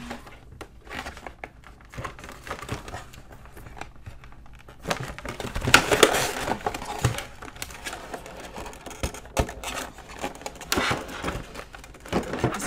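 Rigid clear plastic clamshell packaging crackling and clicking as hands flex and pry it apart to pull the calculator out. The noise is irregular, with louder stretches about six seconds in and again near the end.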